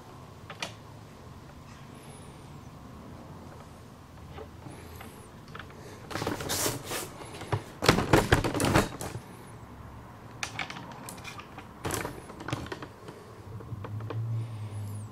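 Clatter of knocks and taps from laying timber floorboards and underlay: irregular light taps, then a dense run of loud knocks about halfway through, and a few more taps later.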